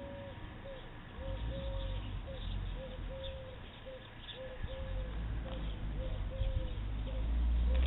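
A bird calling over and over in a steady rhythm of thin notes, two short and one longer, about every second and a half. A low rumble of wind on the microphone runs underneath and grows louder near the end.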